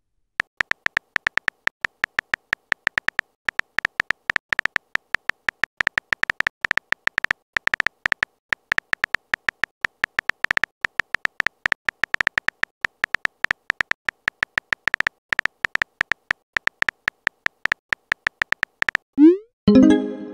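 Texting app keyboard sound effect: rapid short high ticks, one per typed letter, several a second with brief pauses. Near the end a short rising swoop and chime plays as the message is sent.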